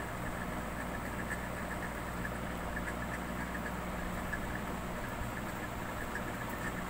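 A steady low hum with a faint hiss above it.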